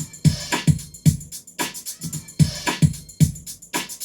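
Electronic drum machine beat played from a Roland Sound Expansion Dance M-DC1 module: a steady pattern of low kicks, snare hits and bright hi-hat strokes at a brisk tempo.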